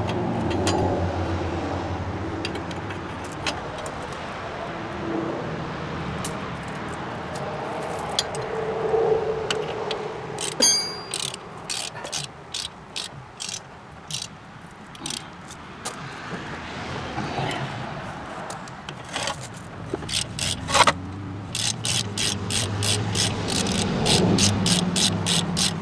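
Ratchet wrench clicking in quick runs of even clicks while the hub assembly's mounting bolts are tightened.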